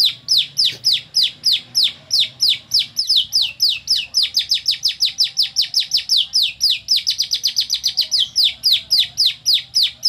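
Lovebird singing a long, unbroken canary-style song learned by imitation: a rapid run of high, downward-sliding chirps, about five or six a second, with no pause.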